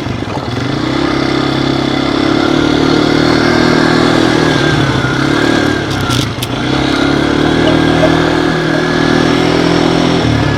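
ATV (quad bike) engine running under throttle as it is ridden around a dirt track, a steady engine note that eases off briefly twice, about five and six and a half seconds in.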